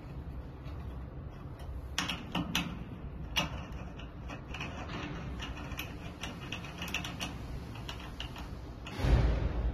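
Small metallic clicks and scrapes of a hex key turning the screws of a metal clamp fixture as an iron is fastened into it. Near the end comes a louder knock with handling noise.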